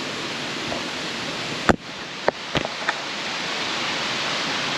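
Steady rain falling and running water, with a few sharp clicks about two seconds in.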